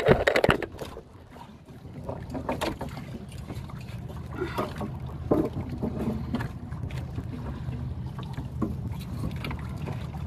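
A boat's engine running steadily, with a few sharp knocks and scrapes as a barracuda is handled against the boat's wooden hull.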